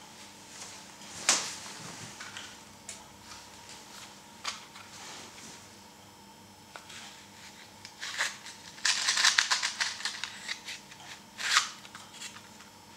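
Hard plastic parts being handled: scattered sharp clicks and knocks, the loudest about a second in, with a dense patch of rapid clicking and rustling around nine to ten seconds in and one more sharp click near the end.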